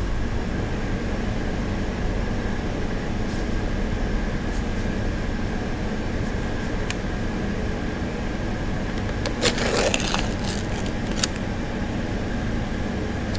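Steady low hum of store machinery, with a faint steady tone. About two-thirds of the way in comes a brief rustle as the sealed lid is peeled off a paper instant mashed-potato cup, then a small click.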